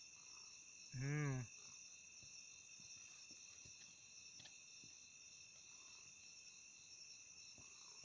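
Steady, high-pitched chirring of night insects that runs without a break. A person's short vocal sound, half a second long, comes about a second in.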